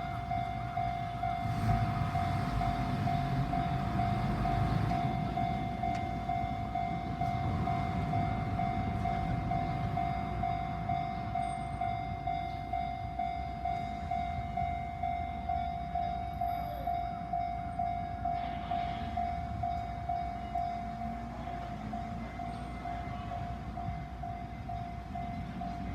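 Japanese railway level-crossing warning bell ringing in a steady, even rhythm, with a train rumbling over the crossing in the first few seconds.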